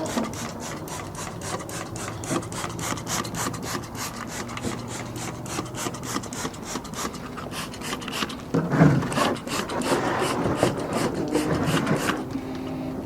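Brush scrubbing an oily tool coated in degreaser, in rapid, rhythmic back-and-forth strokes.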